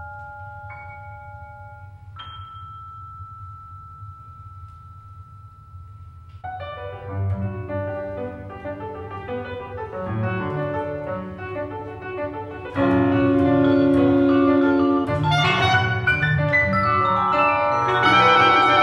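Live jazz-influenced chamber ensemble: a few single struck vibraphone notes ring on alone, then about six seconds in piano and mallets enter with busy syncopated lines, and about thirteen seconds in the ensemble gets much louder with steady held notes joining.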